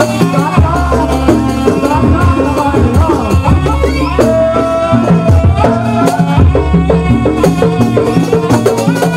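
Live jaranan ensemble music: drums and ringing gong-like tones keeping a steady beat, with a wavering melody line over them and a shaken rattle.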